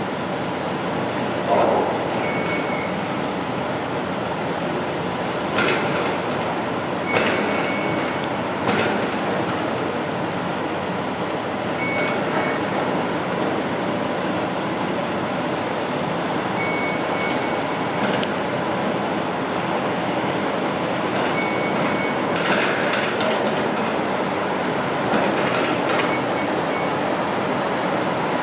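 Heavy construction machinery running steadily, with occasional sharp metallic clanks and a short high beep that recurs every few seconds.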